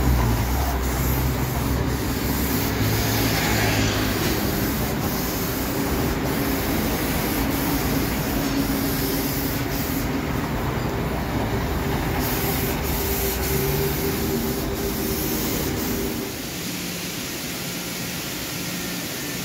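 Compressed-air paint spray gun hissing steadily over a steady low machine hum. Near the end the hiss stops and a quieter steady background remains.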